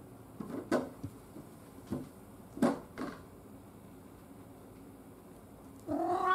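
Cat door flap knocking about five times over three seconds as a cat pushes through and the flap swings to and settles. Near the end a cat begins a meow.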